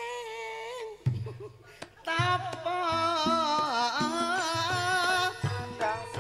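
A Javanese female singer (sinden) singing a wavering, ornamented melody into a microphone, backed by a barrel hand drum (kendang). She holds a long note, breaks off about a second in while only drum strokes sound, then takes up the line again over steady drum beats.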